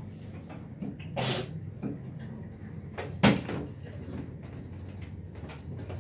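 A few knocks and clicks of equipment being handled on a table, with a brief rustle a little over a second in and one sharp, loud knock a little over three seconds in, over a steady low hum.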